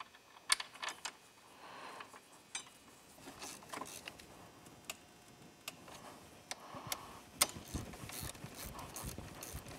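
Faint metal clicks and taps of a wrench and steel bolts as the two 15 mm caliper mounting bolts are put back in and tightened on an ATV's front brake caliper. The clicks come a second or so apart at first and grow denser near the end.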